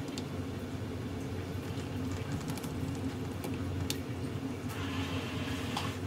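A steady low hum throughout, with a few faint clicks and a brief scrape from a hex driver turning the motor mount screws on an RC buggy's electric motor.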